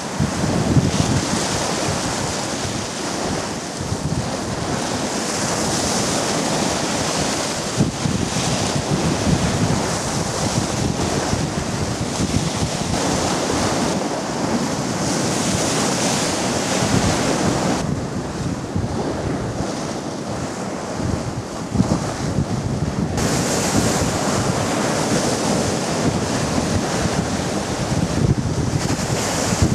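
Choppy sea water washing and breaking, its hiss swelling and easing every few seconds, with wind buffeting the microphone in a low rumble.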